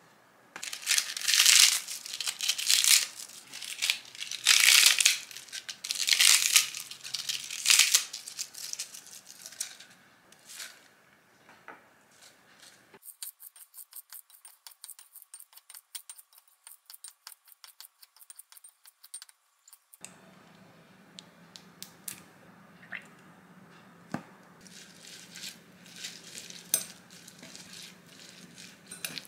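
Loud crinkling and tearing for the first several seconds. Then a quick, even run of snips as lettuce is cut with kitchen scissors in a glass bowl. Near the end the salad is tossed with tongs, with a few clinks against the glass.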